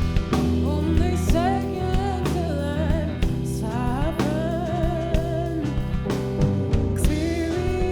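A woman singing a slow, soulful song with vibrato over a band backing with drums.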